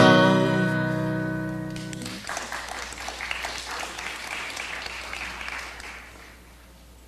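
A band's final chord rings out and stops about two seconds in. Audience applause follows and fades away.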